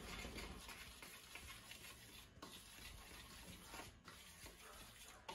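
Faint stirring of a dry flour mixture in a bowl, with a few light ticks.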